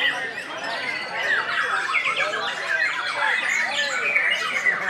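Caged songbirds, among them white-rumped shamas (murai batu), singing in competition: a dense, unbroken chorus of overlapping whistles, chirps and quick rising and falling notes.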